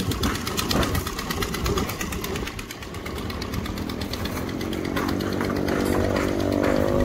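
An engine running steadily with a fast, even pulse. A voice comes in about five seconds in.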